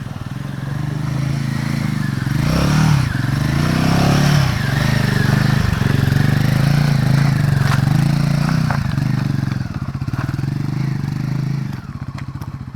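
Motorcycle engine running under load while being ridden off-road, its revs rising and falling. A couple of sharp knocks come through about two thirds of the way in.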